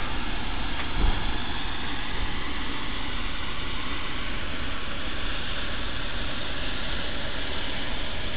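Western Maryland Scenic Railroad 1309, a former Chesapeake and Ohio 2-6-6-2 steam locomotive, standing with steam up and giving a steady hiss, with one short low thump about a second in.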